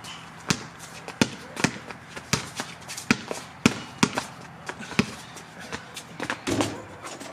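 Basketball being dribbled, sharp bounces about two a second at an uneven pace.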